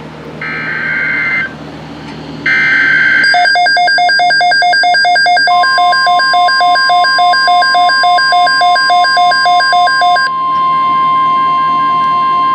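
Emergency Alert System tones: two short bursts of digital data noise from the SAME header, then an electronic alarm beeping rapidly, several beeps a second. About halfway through, the steady high NOAA Weather Radio alert tone joins it. After about ten seconds the beeping drops to faint while the steady tone holds.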